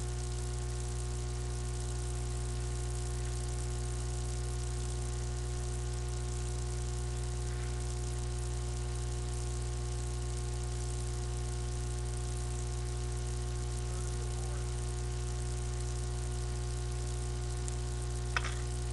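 Steady low electrical hum with a constant hiss, picked up by a webcam microphone; a single sharp click sounds near the end.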